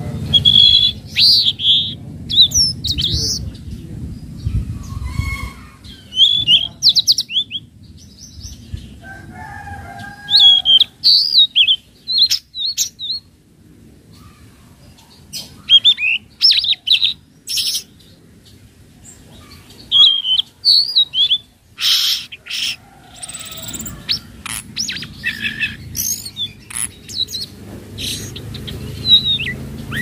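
A young tledekan laut, a flycatcher kept as a songbird, singing in repeated short bursts of high, quick warbling chirps, with a brief lull about halfway through.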